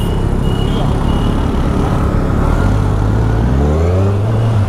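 Kawasaki Z1000SX's inline-four engine running as the motorcycle moves off through city traffic, rising in pitch about three and a half seconds in as it accelerates. Road and traffic noise around it, with a few short high beeps near the start.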